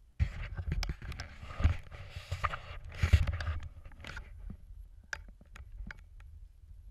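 Handling noise from a GoPro on a selfie pole being passed between hands: rustling, rumbling knocks and scraping for about four seconds, then a few scattered light clicks and taps.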